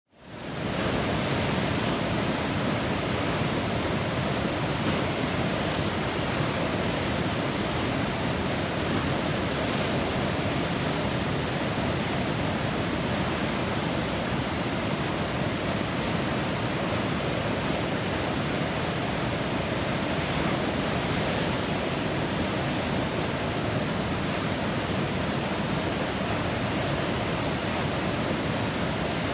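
Whitewater river rapids rushing steadily, fading in quickly at the start.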